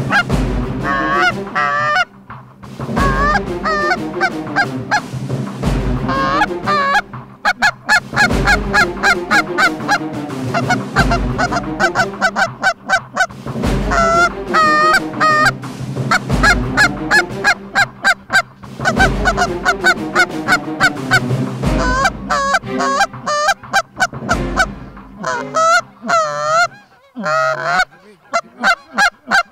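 A flock of geese honking continuously as they fly in, many calls overlapping. Under the calls runs music with a slow, deep drum beat about every three seconds, which stops a few seconds before the end.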